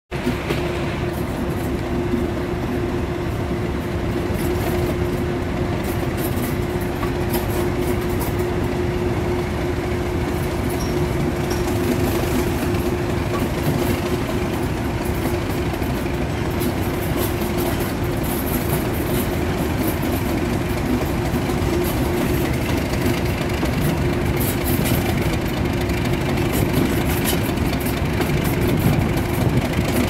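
Class 37 diesel-electric locomotive D6737, its English Electric V12 diesel working hard as it accelerates away from a speed restriction, heard from the train it is hauling. There is a steady tone throughout over the rumble of the engine and the wheels on the rails, and it grows a little louder toward the end.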